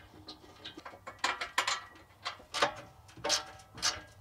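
Hand ratchet wrench clicking in short runs as bolts are undone under the car, with several sharper, louder clicks between about one and four seconds in.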